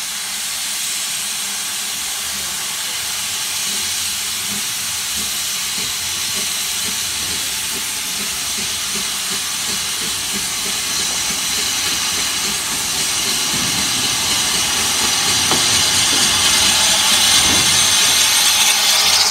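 George England steam locomotive 'Prince' hissing steam steadily as it pulls slowly out of the station. The hiss grows louder as the engine comes up close.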